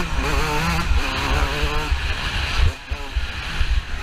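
Motocross bike engine racing at speed on an onboard camera, its pitch climbing hard twice in the first two seconds, dipping briefly near three seconds as the throttle is closed, then pulling again. Wind buffets the microphone throughout.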